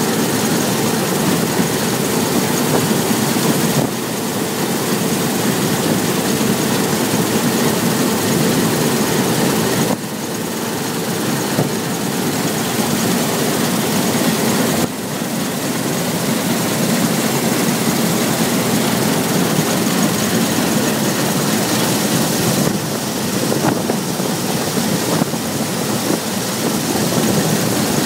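Claas Lexion 600 combine harvester running steadily while harvesting wheat: a dense, loud machine noise with a steady hum. The level drops abruptly a few times.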